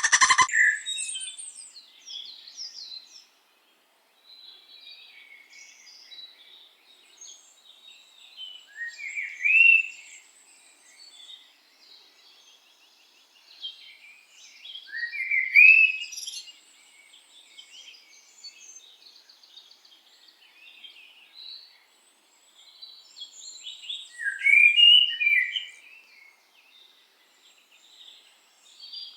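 Birds chirping and singing, a scatter of small high calls throughout. A louder phrase rising in pitch stands out three times, about nine, fifteen and twenty-five seconds in. A loud pitched sound cuts off right at the start.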